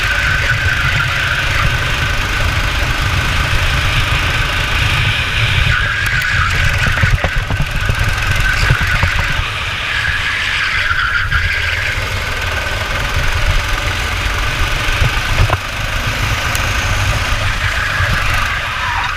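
Go-kart engine at racing speed, its note rising and falling as the kart accelerates and slows, with heavy wind rumble on the onboard microphone.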